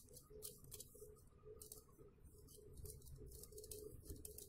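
Faint, quick strokes of a block of cheese being grated on a metal box grater, repeating about two or three times a second.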